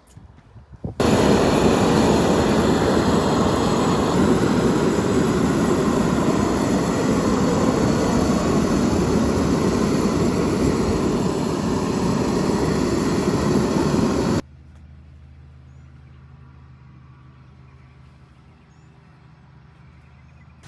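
Cordless angle grinder fitted with an 80-grit sanding disc, running loud and steady while sanding down splinters on a wooden post. It starts and stops abruptly, giving way to a much quieter steady hum for the last few seconds.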